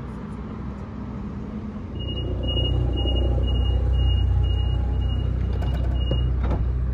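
Sydney Trains Waratah B-set electric train standing at the platform, its low rumble swelling about two seconds in. Over it, a run of about nine short high beeps, roughly two a second.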